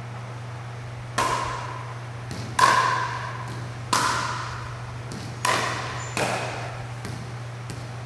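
A pickleball rally: five sharp, echoing pops of the hard plastic ball being hit, roughly one to one and a half seconds apart, over a steady low hum.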